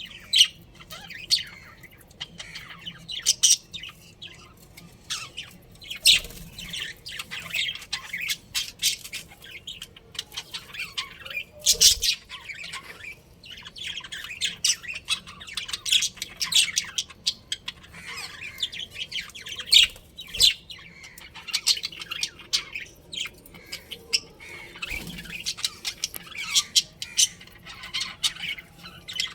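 Budgerigars chirping and squawking in a steady chatter of short, sharp calls, one after another.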